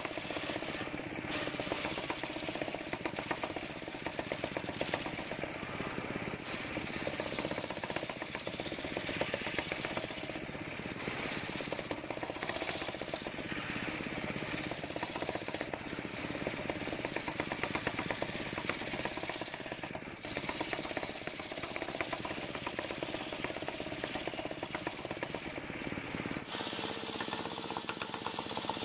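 Large homemade circular saw bench ripping teak logs, the big blade cutting through the wood under power with a fast, even rattle. The sound changes abruptly near the end.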